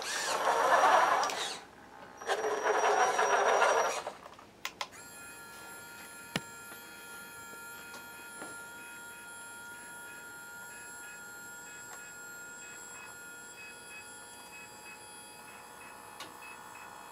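RC dump truck's electric drive motor whirring in two short runs as it drives over a rubber mat. A couple of clicks follow, then the Actuonix L16-R miniature linear servo gives a faint, steady thin whine as it slowly tilts up the rock-loaded dump bed.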